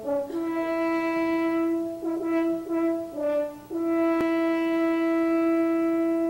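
A French horn plays a slow solo melody: a held note, a few shorter notes, then a long sustained note from a little under four seconds in.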